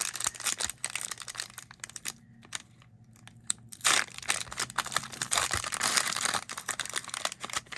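Cellophane wrapper of a sports-card cello pack being torn open and crinkled by hand: irregular crackling and tearing, with a quieter stretch in the middle.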